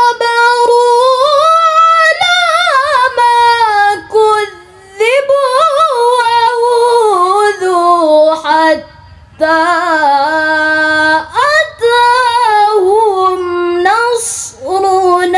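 A young woman's melodic Quran recitation (tilawah): long held notes with quick, wavering ornamental turns, sung in phrases broken by a few short pauses.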